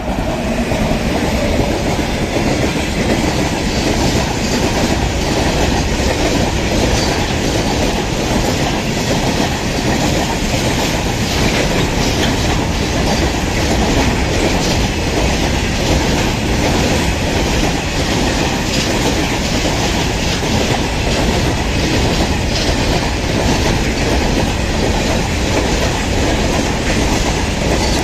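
A train hauled by an Indian Railways WAG-9HC electric freight locomotive passing close by, its wagon wheels clattering steadily over the rail joints.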